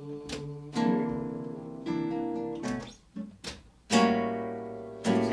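Acoustic guitar strumming chords. There is a short break about three seconds in, then a full chord about four seconds in that rings out.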